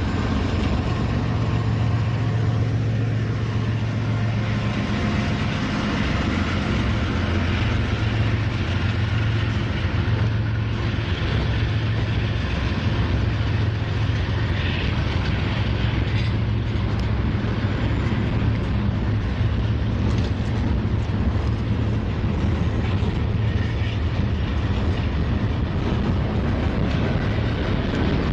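Freight train passing close by: diesel locomotives and freight cars rolling on the rails, with a steady low drone.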